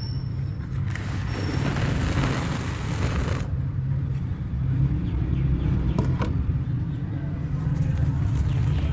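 Dry, dusty dirt crumbled by hand and dropped into a plastic tub: a gritty hiss starts about a second in and cuts off sharply at about three and a half seconds, and a couple of faint clicks follow later. A steady low rumble sits under it all.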